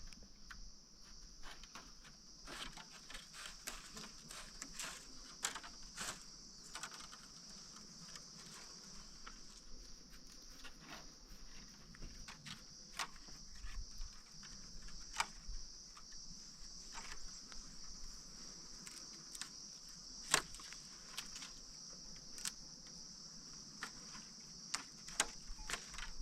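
Steady high-pitched insect chorus, like crickets, with irregular sharp taps and clicks scattered through it.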